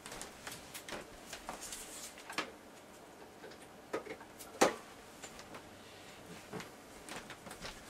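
Scattered light clicks and knocks of a power adapter and its cable being handled and plugged into an outlet, the sharpest knock about four and a half seconds in.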